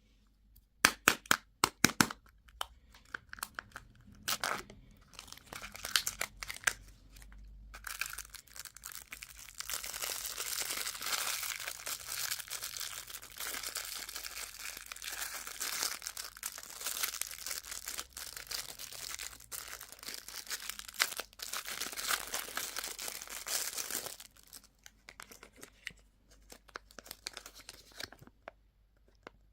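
Plastic candy wrapper being torn open and crinkled by hand: a few sharp crackles in the first two seconds, then continuous crinkling for about fifteen seconds, thinning to scattered crackles near the end.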